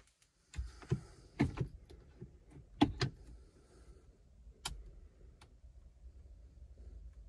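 Several irregular knocks and taps, about half a dozen over the first five seconds with the loudest near the middle, as a hand taps the car's infotainment touchscreen and bumps around the dashboard, over a faint low cabin hum.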